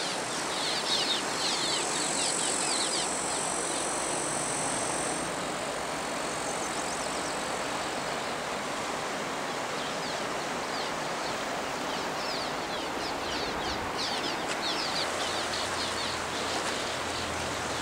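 A flock of swallows chirping in short, quick calls over the steady rush of a river. The chirps come thickly in the first few seconds and again near the end.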